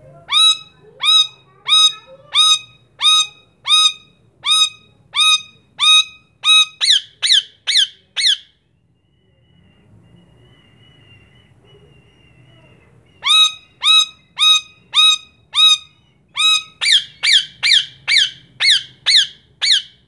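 Rose-ringed (Indian ringneck) parakeet screeching: a long series of short, shrill calls, each falling in pitch, coming faster and faster. The calls stop for about four seconds in the middle, then start again and quicken toward the end.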